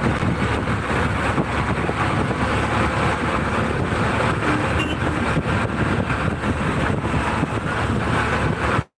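Steady road and wind noise of a vehicle driving at speed, the sound cutting off suddenly near the end.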